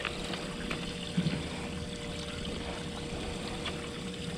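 Water trickling and splashing, over a faint steady hum.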